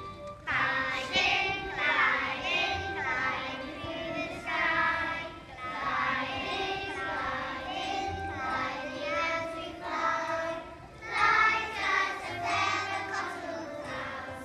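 A group of young children singing a song together, with music accompanying them.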